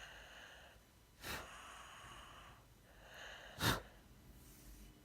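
Snoring: slow noisy breaths broken by two short snorts, one about a second in and a louder one about two and a half seconds later.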